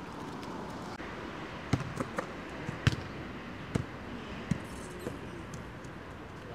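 A football being kicked and bouncing on grass: about six sharp, irregular thumps in the first half, the loudest about three seconds in.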